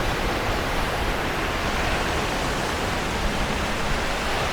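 Steady rushing noise of ocean surf breaking on the beach, even in level with no distinct waves standing out.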